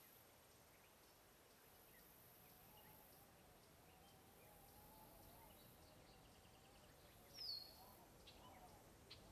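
Faint outdoor ambience with scattered bird chirps; a single short, sharply falling bird chirp about seven and a half seconds in is the loudest sound.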